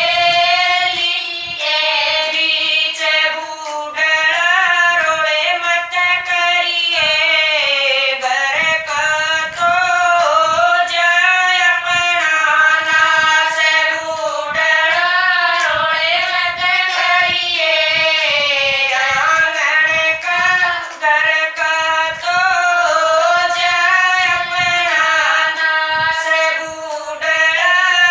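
Women singing a Haryanvi bhajan (devotional folk song) together, the melody running on without a break.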